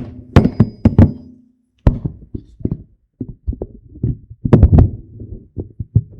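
A run of irregular knocks and thumps, several a second, with a couple of short pauses.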